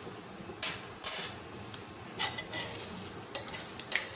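Flat metal spatula scraping and clinking against a metal karahi as whole spices are stirred in hot oil. There are about seven short knocks and scrapes with a brief metallic ring, the loudest a little over a second in.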